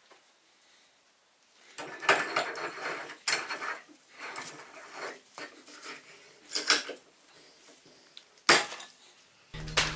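Metal tools and parts clinking and clattering on a workbench in irregular knocks, with a sharp click about a second and a half before the end. A louder steady buzzing with a low hum starts just before the end.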